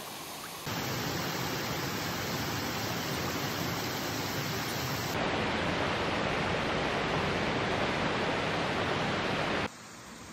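Shallow rocky stream running over stones: a steady rush of water that starts about a second in and cuts off abruptly near the end.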